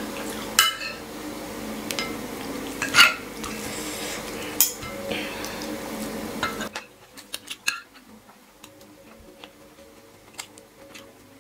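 Metal spoon and fork clinking and scraping on ceramic plates during eating, with a few louder clinks in the first half. A steady background hum cuts off suddenly about two-thirds of the way through, leaving only light, scattered clicks of the cutlery.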